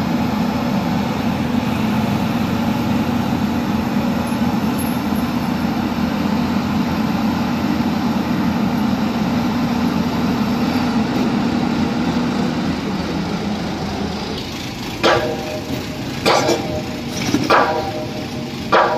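Heavy machine's engine running steadily while it digs soil out from inside a bridge pier; its steady note fades about two-thirds of the way through. Near the end come four loud metal clanks, about a second apart.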